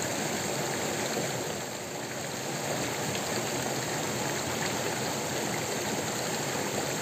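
Shallow, fast-flowing stream rushing steadily over rocks.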